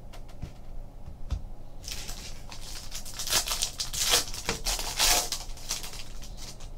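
Foil wrapper of a 2015 Topps Tribute baseball card pack being torn open and crinkled by hand as the cards are slid out. A few light clicks of cards being handled come first, then about four seconds of dense crackling with louder tears around three, four and five seconds in.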